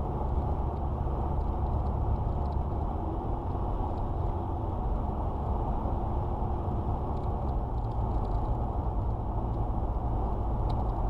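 A car driving on a gravel road, heard from inside the cabin through a dashcam: a steady rumble of engine and tyres on the gravel, with faint scattered ticks.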